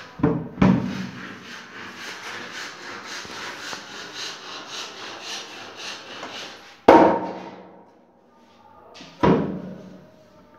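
Wooden kitchen cabinet doors being handled: two knocks at the start, several seconds of rhythmic rubbing, then two sharp bangs about seven and nine seconds in.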